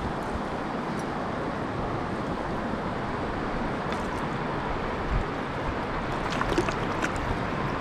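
Steady rush of a river's current flowing over stones, with a few faint clicks and taps in the last couple of seconds.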